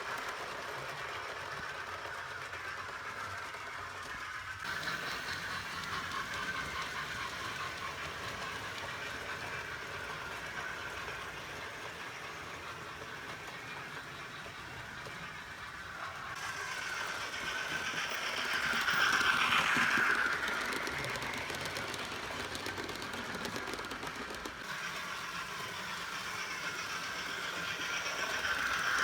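Hornby Thompson A2/3 model steam locomotive running with its TTS sound decoder playing steam sounds through its small speaker, over the whir of the model's motor and wheels on the track. It swells to its loudest about two-thirds of the way through, eases off, and rises again near the end.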